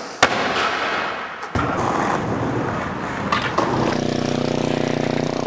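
Skateboard wheels rolling on concrete, with a sharp clack of the board about a quarter second in. From about four seconds a steady hum comes in under the rolling.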